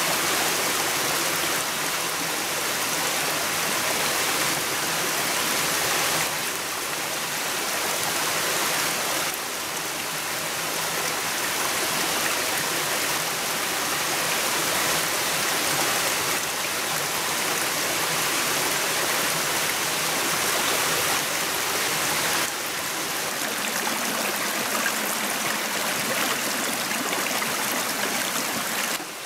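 Steady rushing of a rocky forest stream, a continuous hiss of running water that steps up and down in level a few times.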